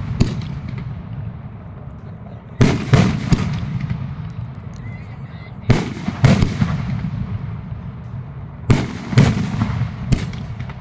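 Fireworks going off: sharp bangs, mostly in pairs about every three seconds, each followed by a rumble and crackle that fades away.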